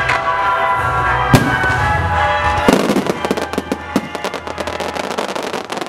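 Aerial firework shell bursting with one sharp bang about a second and a half in, then, from about halfway, a dense run of crackles from the burst.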